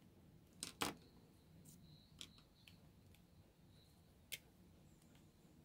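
Near silence broken by a few sharp clicks: two close together under a second in, some small taps, and one more after four seconds, as a marker pen is picked up and uncapped.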